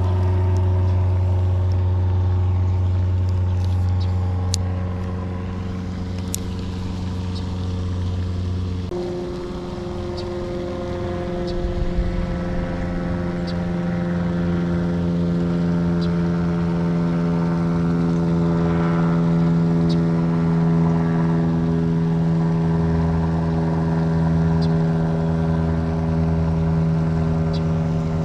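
A motor engine running steadily at constant speed, its tone changing once about nine seconds in.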